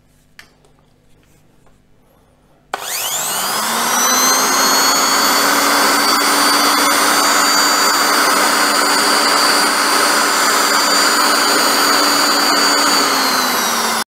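Bosch GSB 550 corded impact drill switched on a few seconds in. Its motor whines up to full speed within about a second, then runs steadily, spinning free in the hand, until the sound cuts off abruptly near the end. A few light handling clicks come before it starts.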